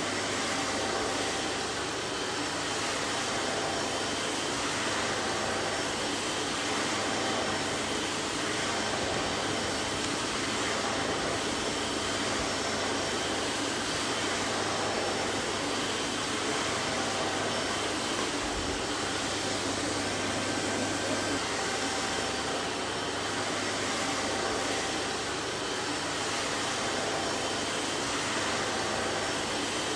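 Vacuum cleaner running steadily, a constant hiss of rushing air over a low motor hum, with no change in pitch or level.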